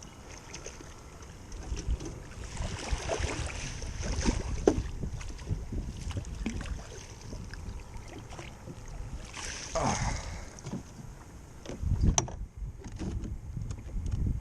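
Wind rumbling on the microphone and water moving around a small fishing boat, with scattered knocks and clicks.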